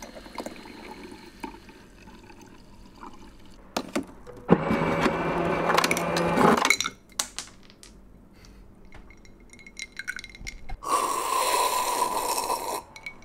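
Refrigerator water dispenser running for about two seconds, its valve humming as water pours into a bottle. Near the end comes a second, noisier rush of about two seconds as the bottle is drunk from, with small clinks and handling sounds in between.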